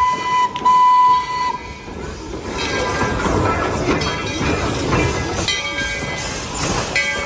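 Train sound effect: a steady train-horn note for about the first second and a half, then the rumble and clatter of a moving train, with short horn notes again near the end.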